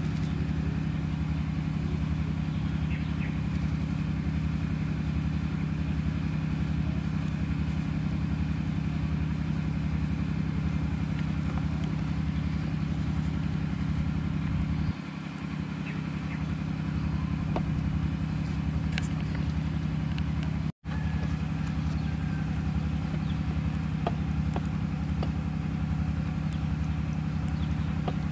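A steady, low mechanical hum with a slow, even pulse, like an engine running. It dips briefly about halfway through and cuts out for an instant a few seconds later.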